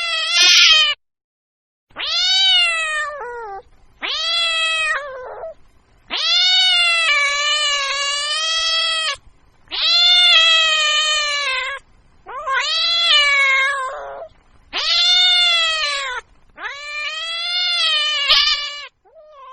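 A cat meowing: a run of about eight drawn-out meows with short silent pauses between them, the one near the middle lasting about three seconds, longer than the rest.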